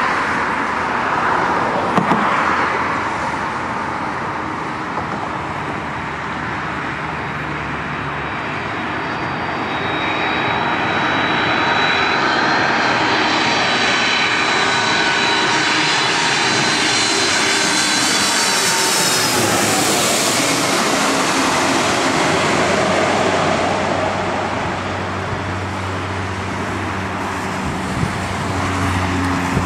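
Twin-engine jet airliner on final approach, landing gear down, passing low overhead. The engine whine and rush build to their loudest about two-thirds of the way in, and the whining tones drop in pitch as it goes by, then ease off.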